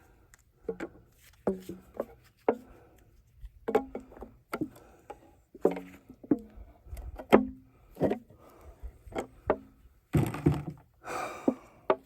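Irregular knocks and taps on a nearly empty fiberglass resin can, several with a brief low ring, and a scraping, rustling stretch near the end: the old resin is thick from the cold and will not come out.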